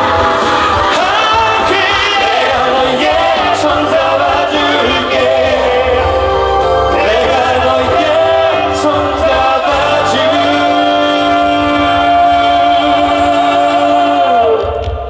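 Live pop music with a band and voices singing, ending on a long held note that slides down and stops just before the end.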